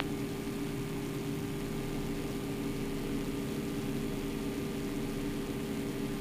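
Yak-52's nine-cylinder Vedeneyev M-14P radial engine and propeller droning steadily in cruise, heard from inside the cockpit.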